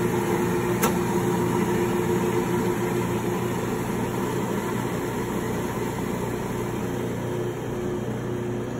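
Steady motor hum of a BUNN commercial coffee grinder grinding beans, fading slowly, with a sharp click about a second in.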